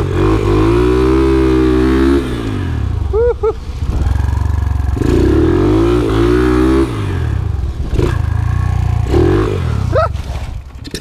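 Single-cylinder four-stroke engine of a Yamaha TTR125-based flat-track bike, revving up and falling back again and again as the throttle is worked through slides. Near the end the bike goes down in a crash and the engine noise drops away sharply.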